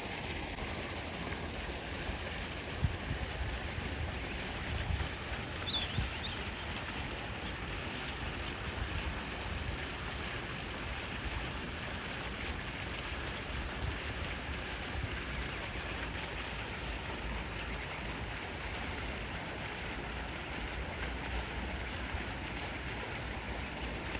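Wind buffeting the microphone, with uneven low rumbles over a steady rushing hiss. A single short, faint high chirp about six seconds in.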